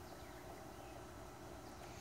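Quiet outdoor ambience: a steady low background hush with a few faint, short bird chirps.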